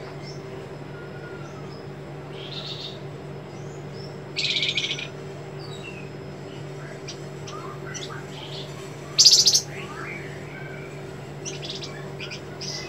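Caged flamboyan songbird giving sharp, rasping "besetan" calls: one short burst about four seconds in and a louder one about nine seconds in, then a quick run of short notes near the end. Faint whistles and a steady low hum run underneath.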